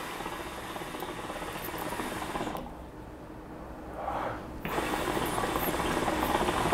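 Hookah water bubbling in the glass base as smoke is drawn through the hose: one long draw, a pause of about two seconds, then a second, louder draw starting about two-thirds of the way in.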